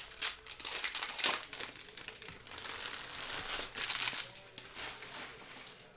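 Foil wrappers of Panini Mosaic basketball card packs crinkling as they are handled and opened by hand. The crinkling comes in uneven bursts and dies down near the end.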